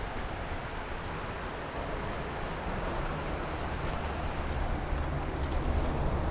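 Steady rushing noise with a low rumble. Near the end, shirt fabric rustles against the body-worn camera.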